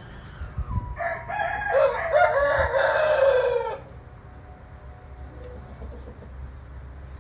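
A young rooster crowing once: a single call of about three seconds that falls in pitch as it ends.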